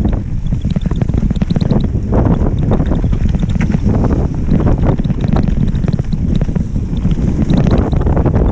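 Wind buffeting the microphone over the rumble and rattle of a mountain bike riding fast down a rough dirt trail, with frequent short clattering knocks as it goes over bumps.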